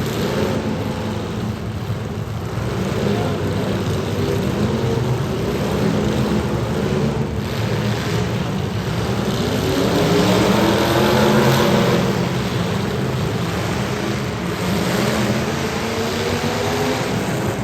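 Demolition derby car engines running and revving, the pitch climbing to a peak about two-thirds of the way through and then dropping back.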